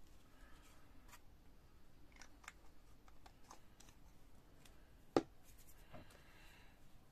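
Faint workbench handling noises: light clicks and taps of small modelling tools and a paper tissue being handled, with one sharper click about five seconds in.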